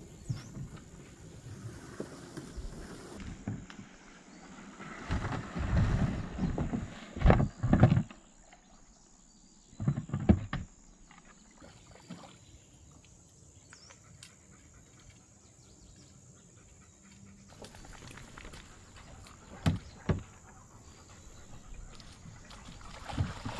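Canoe being paddled on a lake: water swishing from the paddle strokes and a few sharp knocks, in scattered groups with quiet stretches between.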